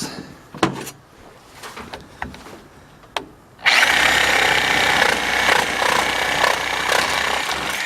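A few light knocks, then about halfway in a DeWalt DWE304 corded reciprocating saw starts suddenly. Its blade for wood with nails saws through a board with nails driven into it, running steadily with a high whine.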